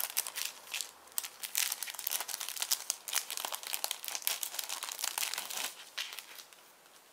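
Clear cellophane bag crinkling as it is handled and opened, a dense run of crackles that eases off about six seconds in.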